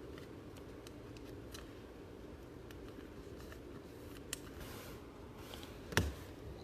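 Faint rustling and light clicks of trading cards being handled and flipped, with a sharper click about six seconds in, over a steady low background hum.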